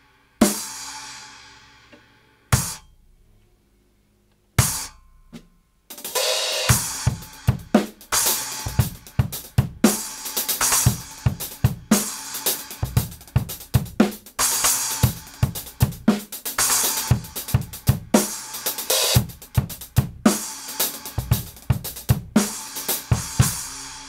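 Kingdo Artist Dark 10-inch splash cymbal struck on its own a few times, one hit cut short. From about six seconds in it is played as accents in a drum-kit groove with kick and snare, ringing out at the end.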